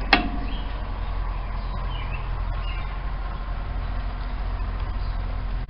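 A single sharp metallic clink with a brief ring right at the start, then a steady low hum of running machinery, with a few faint high chirps over it.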